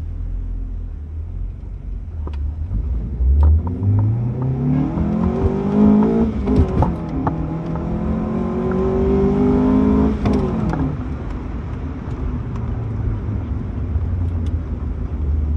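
Car engine and exhaust accelerating hard: the pitch climbs, breaks at a gear change about six seconds in, climbs again, then falls as the throttle is released around ten seconds, leaving a low steady rumble.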